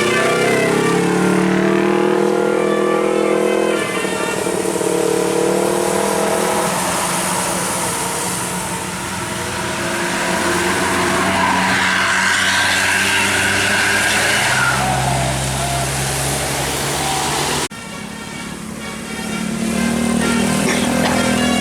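A bus's multi-tone musical 'basuri' telolet horn playing a stepping tune over the bus engine, then the engine running with rising tones as it pulls away. The sound breaks off abruptly about 18 seconds in, and the horn tune starts again near the end.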